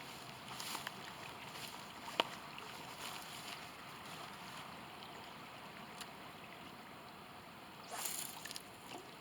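Faint steady hiss of flowing creek water and light wind, with a few soft rustles and one sharp click about two seconds in.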